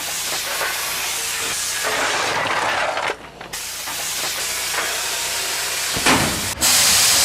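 Steam locomotive hissing steam as it is fired up: a steady hiss that drops away briefly about three seconds in, then returns, with a louder blast of steam near the end.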